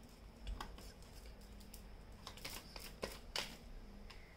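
Tarot cards being handled and laid down on a spread: a few faint slides and taps of card against card, the clearest about three and a half seconds in.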